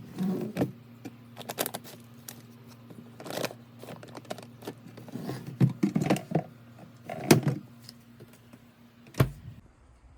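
Household objects being handled: irregular clacks, taps and knocks over a faint steady low hum, ending with one sharp thump about nine seconds in.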